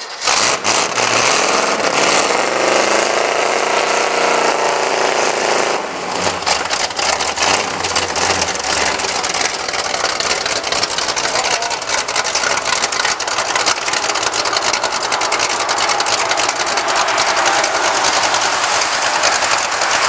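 Mud truck's engine running loud and rough, revved up for a few seconds near the start before settling back to a ragged, steady run.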